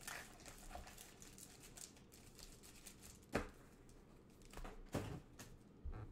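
Faint handling noise: a few light knocks, the loudest about three and a half seconds in, with soft crinkling between them.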